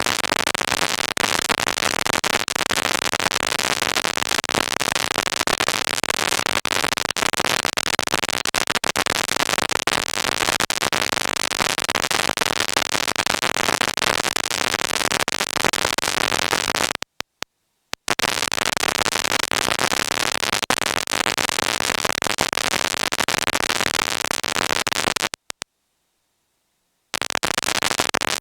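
Dense crackling static, with infrared light picked up by a receiver and turned into sound. It cuts out completely twice: for about a second around 17 s in, and for nearly two seconds near the end.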